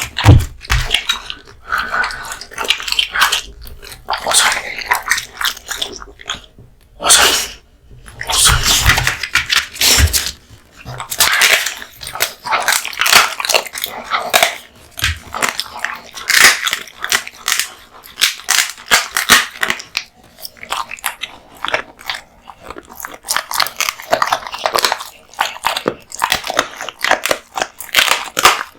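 American Bully dog chewing raw meat and bones: wet chewing with repeated crunching and cracking of bone, in quick irregular clusters, with a few heavier thuds about eight to ten seconds in.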